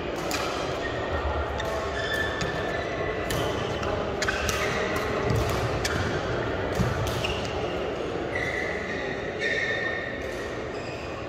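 Badminton rally: rackets strike the shuttlecock several times with sharp cracks, and shoes squeak on the court floor, most noticeably near the end, all echoing in a large sports hall.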